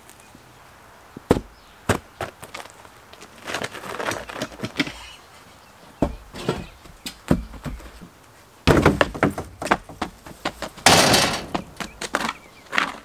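Knocks, thuds and clatter as things are shifted about by hand while someone rummages through a shed, with a loud scraping rush about eleven seconds in.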